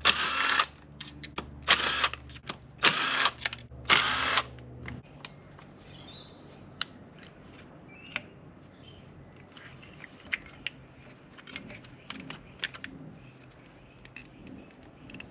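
Power driver with a Torx 30 bit run in four short bursts, its motor whine rising at the start of each, undoing screws. Then light clicks and taps of parts being handled.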